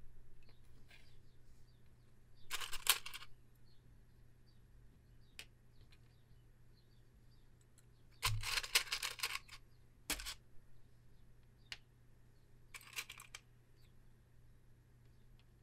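Wooden matchsticks rattling in a cardboard matchbox as the box is handled, in four short bursts, with a few light ticks of single matches laid down on a leather desk pad between them.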